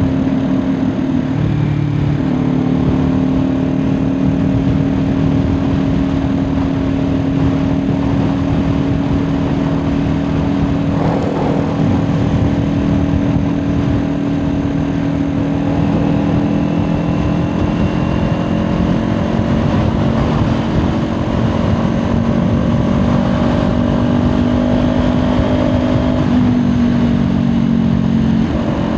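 Kawasaki Ninja 400 parallel-twin engine at a steady highway cruise, heard from the rider's seat over a constant rush of wind noise. The engine note dips near the end.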